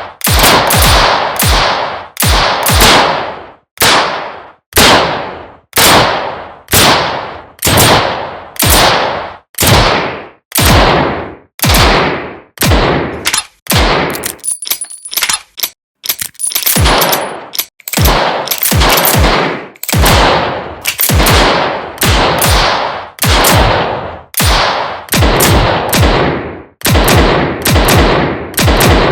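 Revolver gunshots fired one after another, roughly one to two a second, each sharp crack followed by a short echoing decay, with a brief lull about halfway through.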